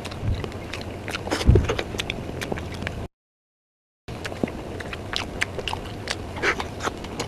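Close-miked eating sounds of soft mousse cake taken from a spoon: scattered sharp wet mouth clicks and smacks while chewing. The sound cuts out completely for about a second partway through.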